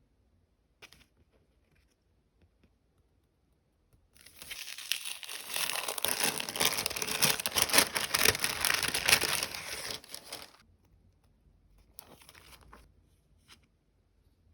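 Stickers and their plastic packaging being handled close up: a short tap about a second in, then about six seconds of loud crinkling, tearing rustle, and a briefer, quieter rustle near the end.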